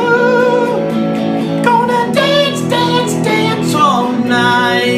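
Music: a song with singing over strummed acoustic guitar.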